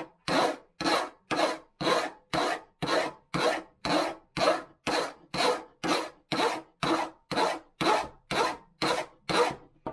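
Flat file drawn in short, even strokes along the edge of a chainsaw guide bar rail, about two strokes a second. The filing dresses off burrs where the bar's metal has mushroomed over the groove the chain rides in. The strokes stop just before the end.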